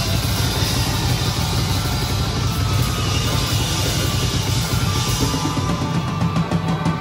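Live rock band playing loudly, heard from right at the drum kit: drums and crashing cymbals over guitar and bass. About six seconds in, the wash thins and single drum hits stand out.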